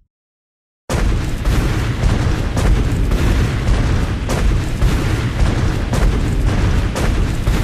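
Giant-dinosaur sound effect: about a second in, a deep rumble starts suddenly and continues, with heavy booming thuds every second or so, beginning to fade near the end.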